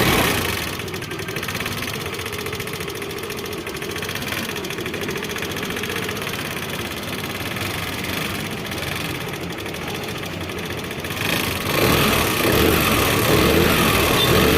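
Hero Pleasure scooter engine running at idle with a rapid mechanical ticking from inside the engine, then running louder for the last few seconds. The noise comes from tappets with far too much clearance.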